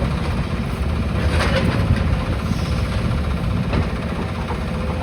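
Demolition excavator's diesel engine running steadily, with a couple of short crunches of debris being broken, about a second and a half in and again near the end.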